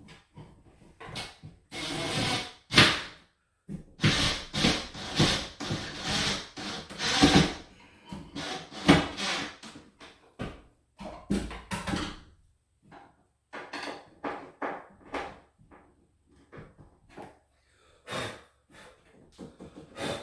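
Irregular knocks, clatter and scraping of wooden closet-organizer panels and hardware being handled and fastened to the wall, busiest in the first half and thinning to scattered light taps later.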